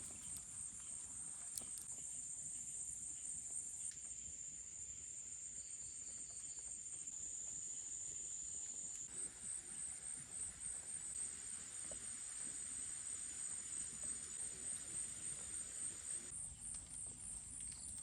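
Forest insects chirring steadily in a high-pitched, finely pulsing drone over a soft hiss. The hiss grows louder for a stretch in the middle and then drops back abruptly.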